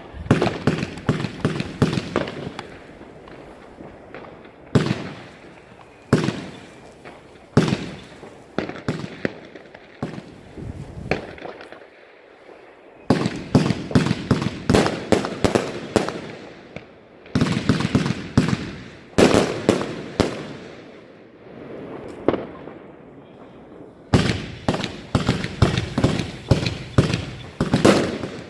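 Firework batteries firing rapid volleys of sharp bangs, in several bursts of a few seconds each with short lulls between, the longest lull about twelve seconds in.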